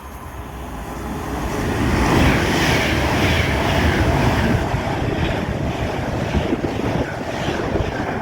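Train passing close by at speed: a rushing noise with a rapid low clatter that builds over about two seconds, stays loud, then slowly fades.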